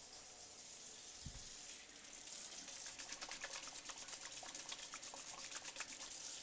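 Faint rustling and fine crackling of paper towel being scrunched and rubbed to mop up spilled paint wash, growing dense about two seconds in.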